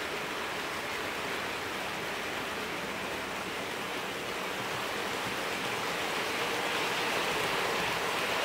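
OO gauge model trains running past: a steady whirring rumble of metal wheels on the track and small electric motors, growing louder in the second half as a train passes close by.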